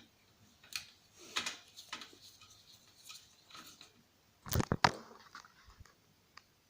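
Scattered clicks and light scrapes of hard plastic parts being handled as a DVD drive mechanism is taken apart, with a sharp cluster of clacks about four and a half seconds in.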